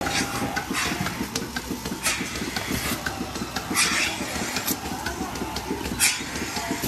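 Milking parlour machinery running with a steady, fast-pulsing mechanical rumble. Several short, sharp hisses of air cut in every second or so as teat cups are put on the cows' teats.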